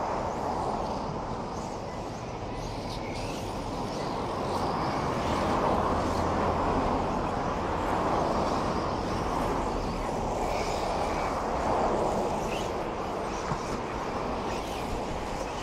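Radio-controlled trucks racing on a dirt track: a steady rush of motor and tyre noise that swells and eases as they come round, with a few faint short squeals.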